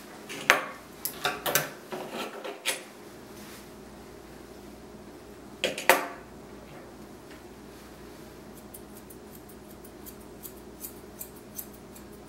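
Metal grooming tools clicking and clinking, with a louder clatter about six seconds in. From about two-thirds of the way through comes a run of quick, light snips of grooming shears.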